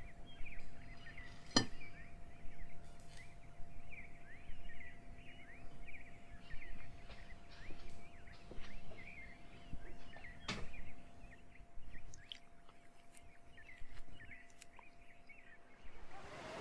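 Small birds chirping continuously, many short high chirps following one another, with two sharp clicks, one about a second and a half in and one about ten and a half seconds in.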